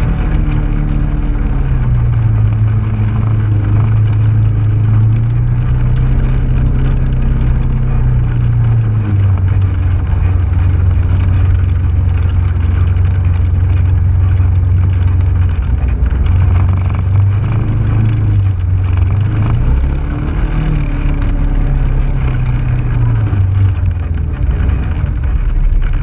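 2015 Polaris RZR XP4 1000 side-by-side's 999 cc parallel-twin engine running steadily while driving a sandy trail, its note dropping a little about nine seconds in and rising and falling a few times in the second half.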